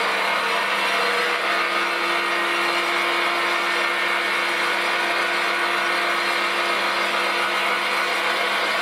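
Weiss WMP280V-F bench lathe running, its spindle turning at a few hundred rpm, with a steady motor and gear hum.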